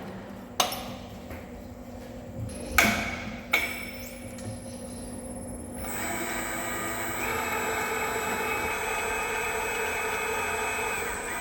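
Workshop metalwork on a large steel pin: three sharp metal clanks in the first few seconds, then a metal lathe running with a steady, many-toned whine from about halfway through.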